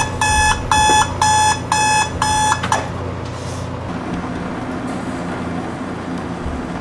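Electronic alarm beeping about twice a second, each beep a short two-tone pip, cutting off abruptly a little under three seconds in; a steady low hum carries on after it.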